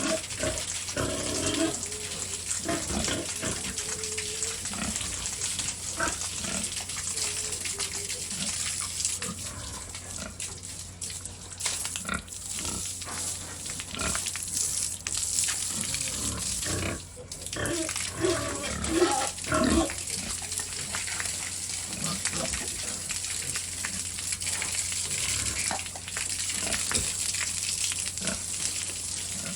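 Pigs grunting and squealing in short calls over a steady rush of spraying water as they are washed.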